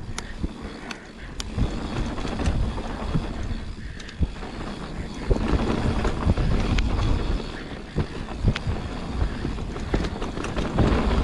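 Mountain bike descending a dirt trail at speed: wind rushing over the microphone, tyres rolling on dirt, and many short sharp clicks and knocks as the bike rattles over bumps, busier in the second half.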